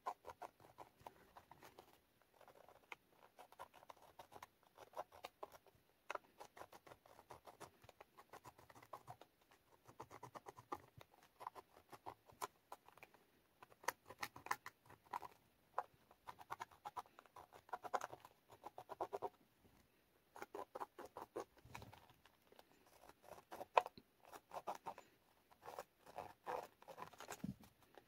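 Faint scratching and tapping of a marker tip on paper as it traces letters through a plastic stencil, in quick clusters of small ticks.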